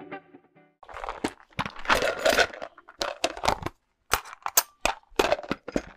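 Outro guitar music stops about half a second in, then irregular rustling and a run of sharp clicks and snaps from objects being handled.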